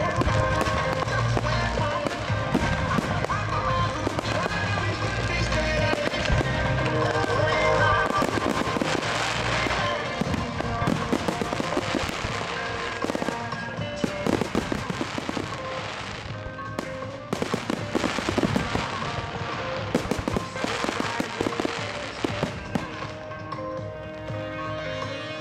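Aerial firework shells bursting and crackling over music playing throughout, the bangs and crackle coming thickest in the middle and latter part.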